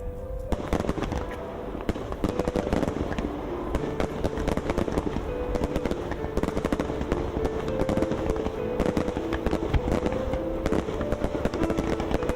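Fireworks crackling and popping in rapid, dense bursts that start about half a second in, over background music with a simple stepping melody.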